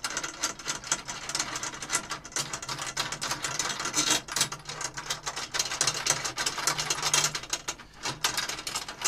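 Metal tension rods being unscrewed from the lugs of a Sonor tom and lifted out of the hoop, with a continuous irregular clicking and rattling of threads, rods and rim.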